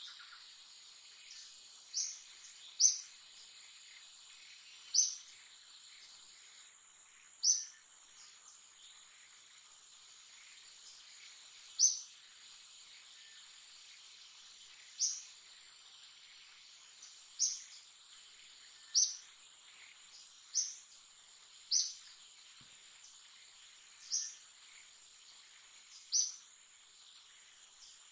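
Outdoor natural ambience: a steady high insect drone, with a short, high, loud chirp repeating about a dozen times at uneven gaps of one to four seconds.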